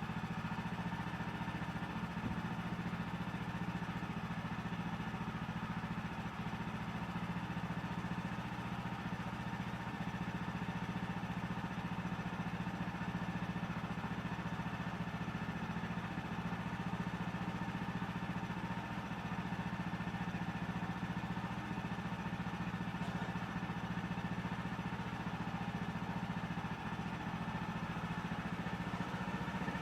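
Woodland Mills HM130MAX portable band sawmill's gas engine running at a steady, unchanging speed.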